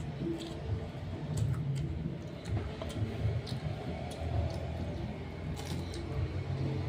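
Eating sounds from a meal of smashed fried chicken and rice: scattered small clicks, crunches and smacks of chewing and of handling food on the plate, about eight of them, over a steady low rumble.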